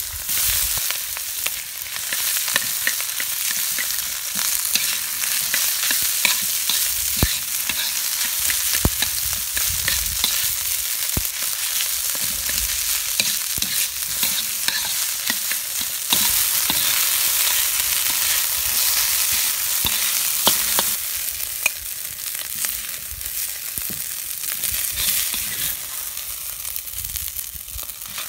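Diced carrot, ham and rice sizzling in hot oil in a wok, stirred and scraped continuously with a metal spatula, with many short scrapes and clicks over the steady sizzle.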